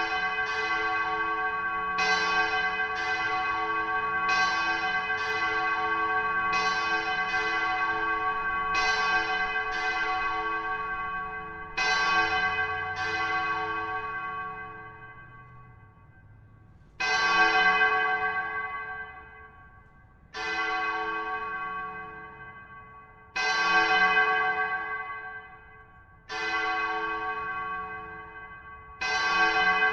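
A bell struck over and over, ringing out with a long decay. Strokes come in quick succession, one or two a second, for the first dozen seconds. It then slows to single strokes about every three seconds, each fading away before the next.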